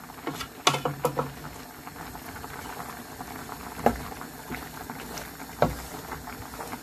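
Tomato sauce with prawns, mussels and squid bubbling in a steel pot as a wooden spoon stirs it, with a few short knocks of the spoon against the pot.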